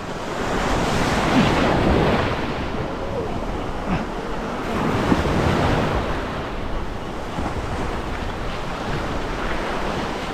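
Ocean surf washing onto a beach, swelling and easing, with wind buffeting the microphone.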